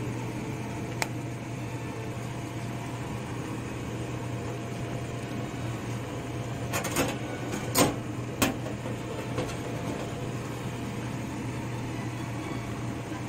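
Steady machine-like kitchen hum with a low drone, broken by a few short sharp clicks and knocks: a faint one about a second in and three or four close together around the middle, the loudest about eight seconds in.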